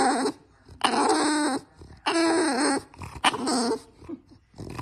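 Bulldog vocalizing up at a person in a run of drawn-out, pitched calls, about one a second, each lasting under a second.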